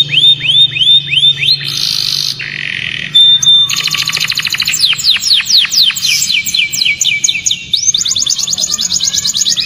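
Domestic canary singing a long, loud, varied song: a run of repeated rising notes, a buzzy trill about two seconds in, a short steady whistle, then fast strings of falling and rising sweeps repeated several times a second.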